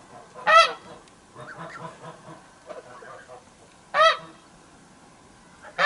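Geese honking: three loud, short honks, about half a second in, near four seconds and at the very end, with softer honks and chatter between them.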